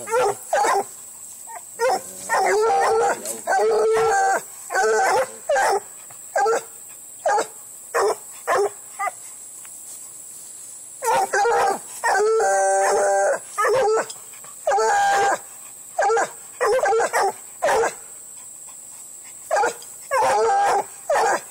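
Bluetick coonhound barking over and over in short, pitched barks, mixed with a few longer drawn-out bawls, the longest about twelve seconds in.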